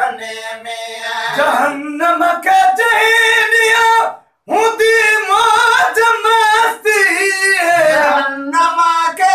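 Men singing unaccompanied in a slow, ornamented style, with long held, wavering notes. There is a short pause about four seconds in.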